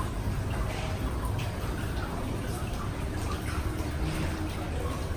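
Indistinct chatter of many people in a busy hall, a steady hubbub with a few faint clicks and clinks.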